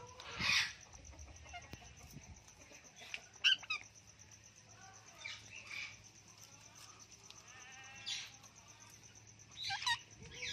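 Parrot giving about five short squawking calls at irregular intervals, over a steady high insect trill.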